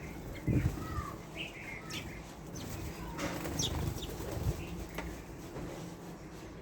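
Small birds giving scattered short chirps and call notes, with a couple of low thuds underneath.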